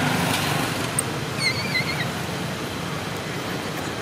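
A short, wavering high-pitched squeal from a baby long-tailed macaque about one and a half seconds in, over a steady low background rumble.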